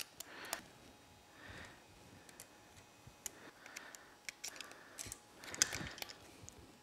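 Scattered light metallic clicks and small rattles of head-bolt washers and bolts being dropped and set into a motorcycle engine's cylinder head, with a brief cluster of louder clicks near the end.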